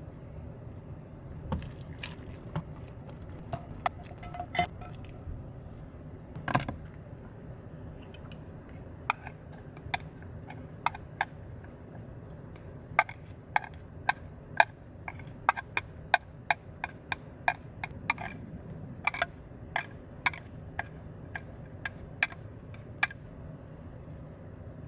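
Irregular sharp clicks and light taps over a low steady hum, a few scattered at first, then a quick run of them from about halfway in until near the end.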